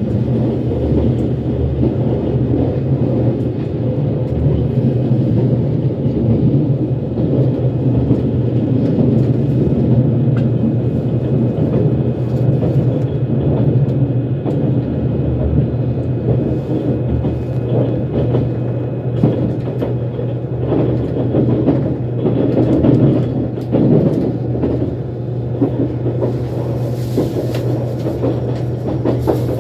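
Cabin running noise of a JR Shikoku 8000 series electric limited express on its final approach into the terminal: a steady low rumble of wheels on rail, with the wheels clicking over the track more often in the second half.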